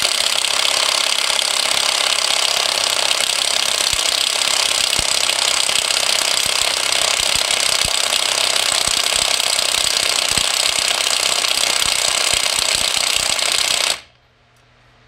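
Bauer 20V half-inch cordless impact wrench hammering on a wheel lug nut, a loud steady rapid rattle that cuts off suddenly about fourteen seconds in.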